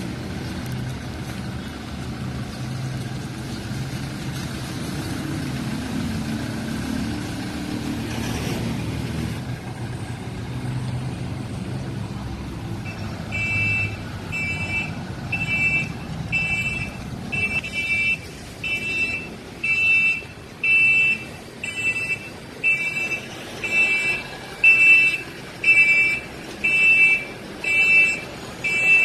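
Toyota Hiace van's engine running, then about halfway through its reversing siren starts: a high-pitched beep repeating about once a second over the engine, getting louder.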